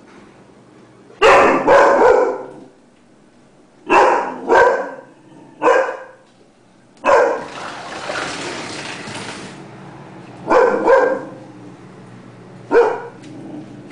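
Doberman barking deep, loud barks in short groups of one to three, about ten in all, alarm barking at a noise outside. A few seconds of steady hiss-like noise fill the middle between barks.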